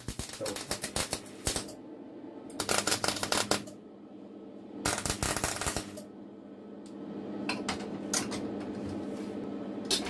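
Electric welding arc tack-welding steel cutlery feathers together: three crackling bursts about a second long each. A few sharp metal clicks and a steady hum follow in the second half.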